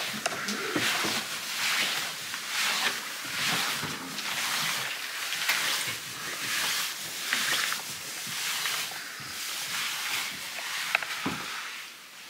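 Footsteps climbing a carpeted staircase, about one step a second, with clothing rustling. There is a sharp click a little before the end.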